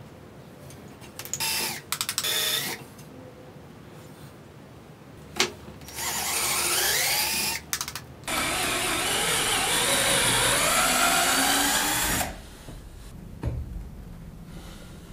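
Electric drill boring dowel holes: two short bursts of the motor, then a run that rises in pitch as it speeds up, and then a steady run of about four seconds that stops abruptly.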